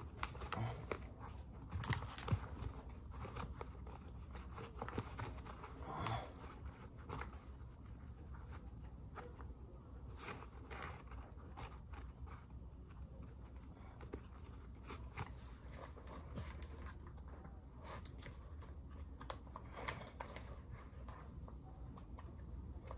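Laces of Burberry Arthur sneakers being pulled tight and tied by hand: faint rustling and scraping of the laces through the eyelets, with scattered small clicks.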